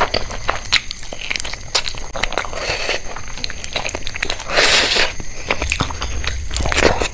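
Close-miked eating: biting into food and chewing with crisp crunching clicks, and one louder, longer crunch about four and a half seconds in.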